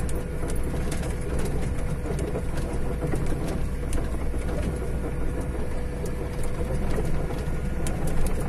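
Semi-truck engine running low and steady, heard from inside the cab, with scattered rattles and knocks as the truck rolls slowly over a rough dirt road.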